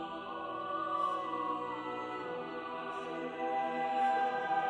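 Background music: a slow, classical-style piece with long held notes whose pitch slides slowly between them.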